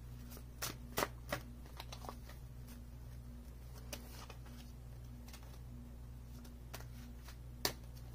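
A tarot deck being shuffled by hand: a quick run of sharp card clicks in the first two seconds, then sparse soft taps and one more sharp click near the end, over a faint steady low hum.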